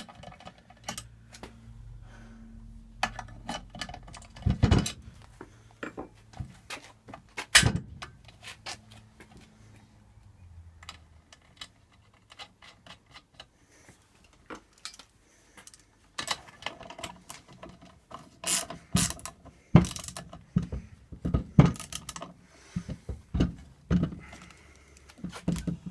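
Hand tools and metal scooter parts clicking and knocking during assembly of a stunt scooter's front end. The sharp clicks come irregularly, with a few louder knocks, and grow busier in the second half.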